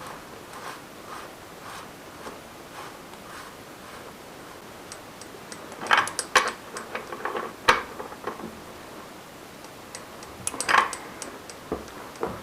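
Metal tools and bicycle bottom bracket parts handled during reassembly: faint regular ticking at first, then two clusters of sharp metallic clinks and clatter, about six seconds in and again near the end.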